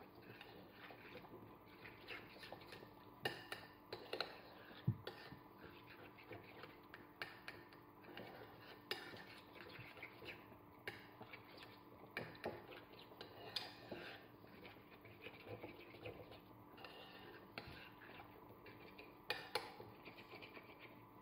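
Metal spoon scraping and clinking lightly against a ceramic plate as it stirs a thick paste of chortan (dried matsoni) and water into a smooth sauce. Faint, irregular small clicks and scrapes throughout.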